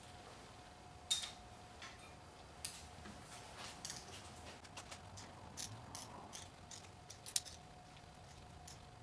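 Ratcheting hand wrench clicking in short irregular runs as a lower intake manifold bolt on a supercharged GM 3800 engine is tightened in the bolt sequence.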